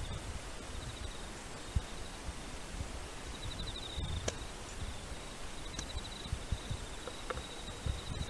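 An insect trilling in short, high, pulsed runs every second or two, over low rumbling noise with a sharp click about halfway through.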